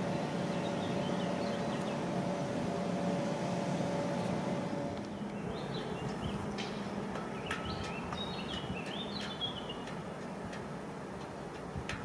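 A train's running noise, a rumble with a steady hum, fading out about five seconds in; birds chirp after it.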